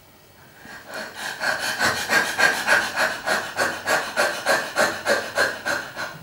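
A woman panting fast and hard through an open mouth, a rasping in-and-out breath at about three to four breaths a second, starting about a second in. It is the involuntary reaction during an acupuncture session that the practitioner calls the awakening of Qi energy.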